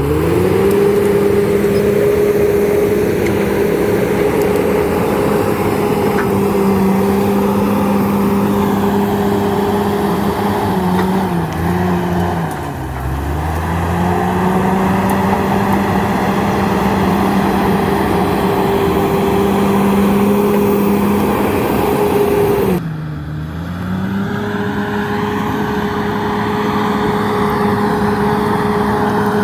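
Komatsu D68ESS crawler bulldozer's diesel engine running at steady high revs. Its pitch sags and recovers about twelve seconds in. Two-thirds of the way through the sound drops abruptly and the revs climb back up.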